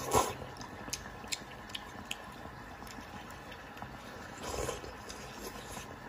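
Close-up eating sounds: a noodle slurped in from a bowl of broth just after the start and again about four and a half seconds in, with small wet chewing clicks between.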